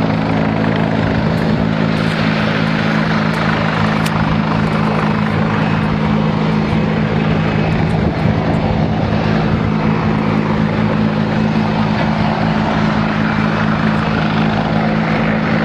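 WZ-10 attack helicopter flying overhead: a loud, steady drone of rotor and turbine with a constant low hum.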